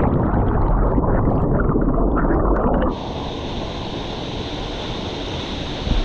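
Muffled underwater rumbling and bubbling, heard with the camera submerged just after a jump into a waterfall pool. About three seconds in, the camera breaks the surface and the steady rush of the waterfall takes over.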